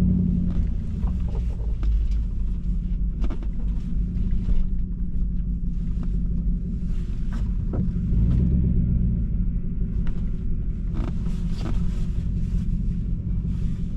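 Vehicle driving along, a steady low rumble of engine and road noise, with a few short light knocks and clicks over it.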